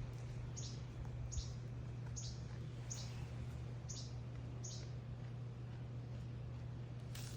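A bird calling a series of short, high chirps, each falling in pitch, about one every 0.8 seconds, six in a row, stopping about five seconds in.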